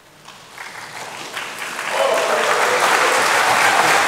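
Audience applause in a lecture hall: scattered claps build up over the first two seconds, then become loud, dense applause.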